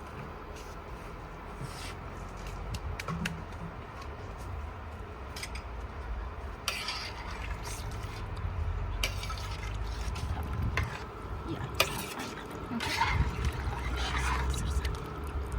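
Kitchen handling sounds: utensils and dishes clinking against a pot, with short splashes and stirring of liquid, over a steady low rumble.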